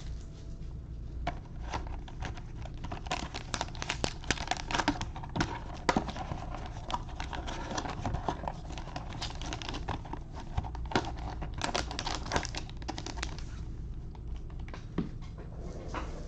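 Packaging being handled as a trading-card box is opened and its pack taken out: irregular crinkling and sharp clicks and taps, which die down near the end.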